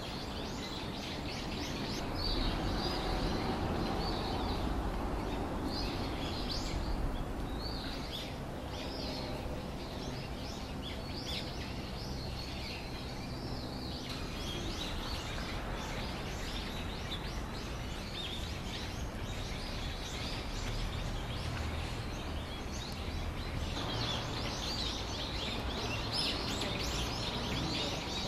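Small birds chirping in quick, repeated calls, busiest near the start and near the end, over a steady low background hum.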